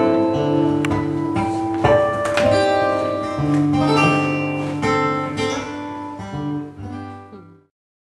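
Acoustic guitar played solo, plucked notes and strummed chords ringing out. The sound drops away to silence near the end.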